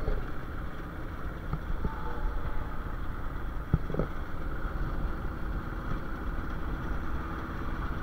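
Engine and road noise of a small open-back cargo vehicle driving steadily, a low even rumble, with a single knock about four seconds in.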